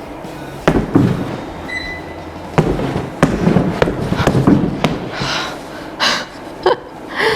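A series of sharp knocks and clicks, several seconds apart, from something being handled and tried out, with scraping and rustling near the end.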